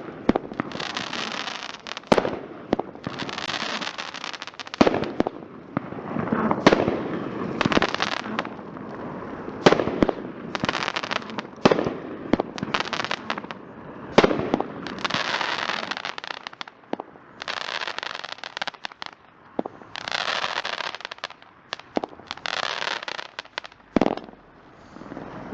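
Consumer firework, the '3 Blind Dice' item, being fired in a demo: a quick series of sharp shots and bursts with hissing and crackling tails, one after another every second or two.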